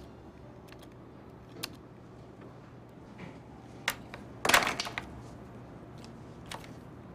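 Desk handling sounds: a few light clicks, then a short rustle of a sheet of paper being drawn across a desk about four and a half seconds in, as a pen is picked up to write.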